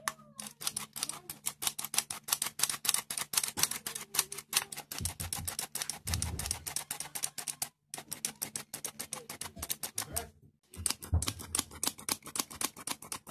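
Hand-operated metal flour sifter clicking rapidly, several clicks a second, as flour is sifted into a bowl of batter, with two brief pauses partway through.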